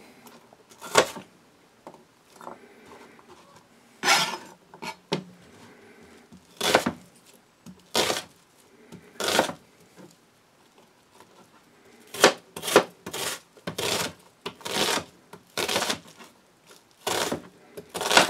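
A chef's knife chopping onion on a plastic chopping board: single cuts that thud on the board with uneven gaps, coming faster and more regularly in the second half.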